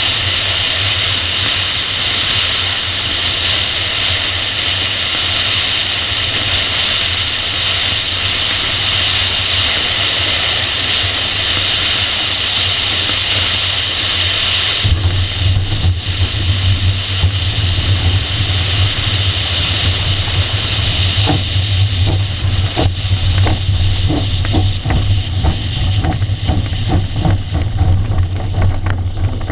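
Steady rush of air over a PIK-20 sailplane gliding in on final approach. About halfway through, its main wheel touches down on dirt, and the glider rolls out with a low rumble and, later, a run of knocks and rattles over the rough ground as it slows.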